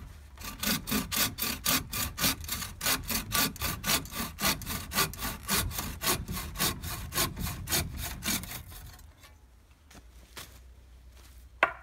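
Hand saw cutting through a dry, winter-felled wooden pole in quick, even strokes, about four to five a second, until the piece is cut through. The strokes stop about two-thirds of the way in, and a single sharp knock comes near the end.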